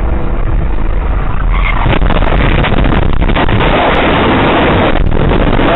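Dashcam recording of a car crash: loud, overloaded rumbling and crackling noise with no steady tone, growing heavier about two seconds in and keeping on.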